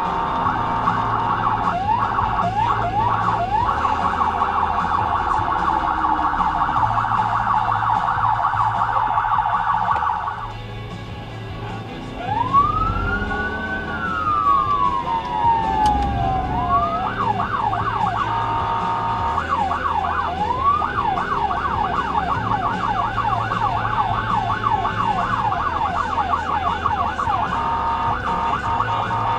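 SoundOff Signal nERGY 400 200-watt electronic siren through a composite siren speaker, running a fast warbling yelp. It cuts out about ten seconds in, gives one slow rise and fall, then goes back to the fast yelp. The responding vehicle's road and engine noise runs underneath.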